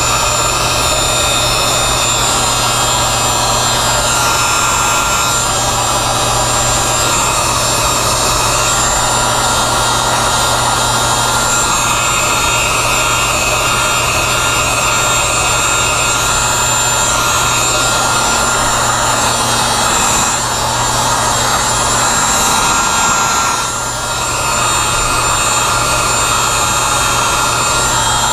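Electric heat gun blowing steadily, a loud fan rush with a steady whine and hum, shrinking heat-shrink tubing over a soldered plug connection. The sound dips briefly about twenty and twenty-four seconds in.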